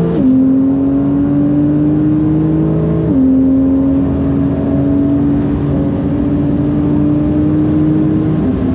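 Porsche 991.2 GTS's twin-turbocharged 3.0-litre flat-six, fitted with bigger turbos, pulling hard under acceleration. Its note climbs steadily and drops with quick upshifts just after the start and about three seconds in, then a long pull in a tall gear ends in another upshift near the end.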